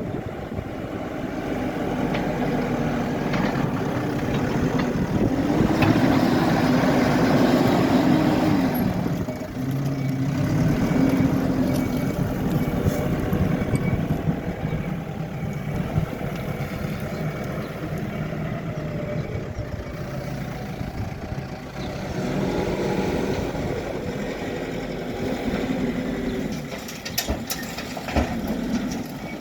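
Hidromek HMK 102S backhoe loader's diesel engine running while the machine works, its revs rising and falling, loudest about a fifth of the way in. A few sharp knocks come near the end.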